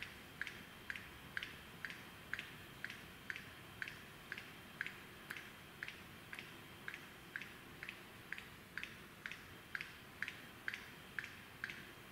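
Male lyrebird's display song during its courtship dance: a steady, evenly timed run of short falling notes, about two a second, over a faint steady high tone.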